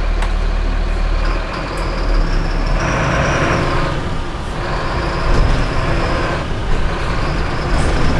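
Four-cylinder diesel engine of a Mercedes-Benz city bus running steadily under way, heard from the driver's seat. A thin high whine comes and goes about three times, with a short hiss about three seconds in.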